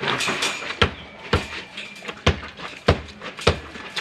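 A hammer striking a cement-plastered wall to break it down: about six sharp blows, roughly one every half second to second.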